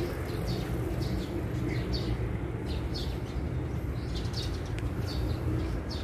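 A small wild songbird chirping, short high notes repeated about twice a second, over a steady low background rumble.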